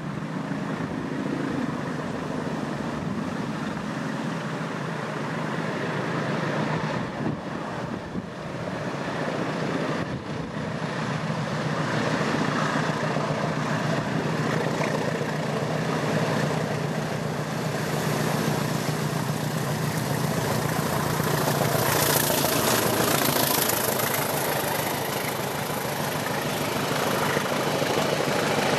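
A pair of English Electric Class 20 diesel locomotives working hard under full power: the thrash of their eight-cylinder engines is a steady drone that grows louder as they approach. It is loudest as the locomotives pass, about three-quarters of the way in.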